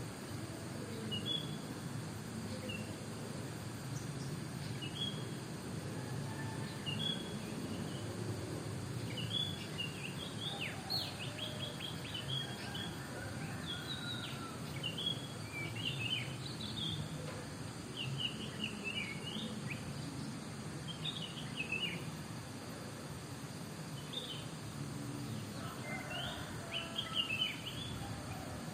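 Several wild birds chirping and calling back and forth in short, high, quick notes, over a steady low background rumble.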